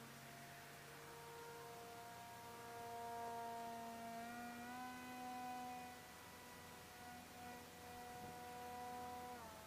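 Faint, steady whine of a distant RC airplane's motor in flight. The pitch steps up a little about halfway through and drops near the end.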